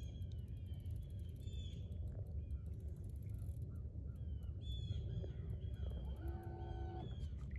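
Birds calling repeatedly in short, arching chirps, with one longer, steadier call about six seconds in, over a steady low rumble.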